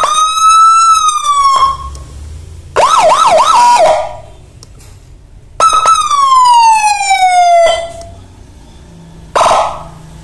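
Electronic siren module cycling through its tones in short separate bursts: a tone that rises and holds, then a quick run of yelping up-sweeps, then a long falling tone, and a short blip near the end, with pauses between.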